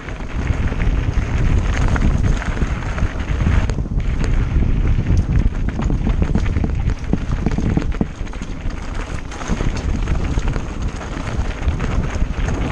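Wind buffeting the camera's microphone while riding a mountain bike, over the crunch of tyres on loose gravel and many small rattles and knocks from the bike over the rough trail.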